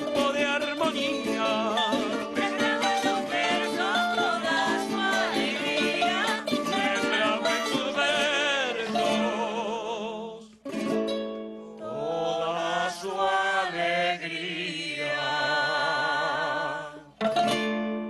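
An eastern Venezuelan folk group playing and singing: several voices singing together with vibrato over plucked guitar and mandolins. The music drops out briefly about ten and a half seconds in, then carries on.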